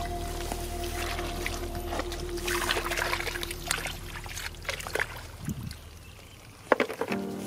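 Shallow muddy water splashing and trickling in short bursts as hands grope through it and lift a bucket, with a sharper splash about two-thirds of the way in.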